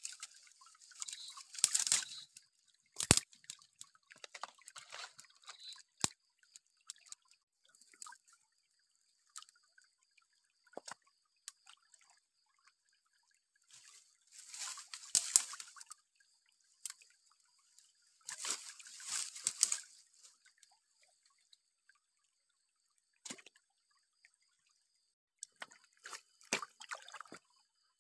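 Water being sloshed and poured in short, irregular bursts, with scattered clicks and a sharp knock about three seconds in.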